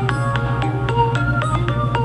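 A Samsung Galaxy ringtone playing: a melody of short, quickly struck notes, several a second, over a steady low tone.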